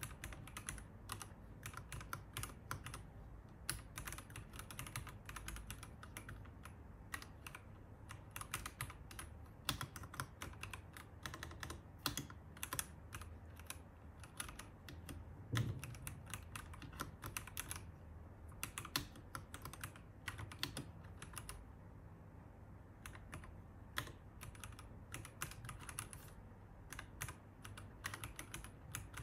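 Continuous fast typing on a Royal Kludge RKH81 hot-swap mechanical keyboard fitted with Cyan switches: a dense, uneven patter of key clicks, with one deeper, louder thump about halfway through.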